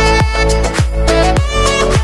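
Background music: an upbeat dance track with a steady, heavy kick-drum beat about twice a second under sustained melodic notes.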